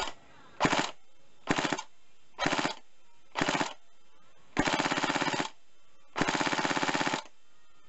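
Tokyo Marui next-generation electric airsoft SCAR-L firing on full auto in bursts, the gearbox and recoil-shock mechanism cycling rapidly: four short bursts, then two longer bursts of about a second each. The blowback is working again after repair, running well.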